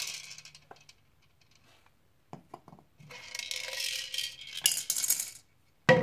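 Dried popcorn kernels rattling and sliding against hard clear plastic as they are poured and tipped about in a measuring cup, with a few scattered clicks in between. A sharp knock comes near the end as the plastic is set down.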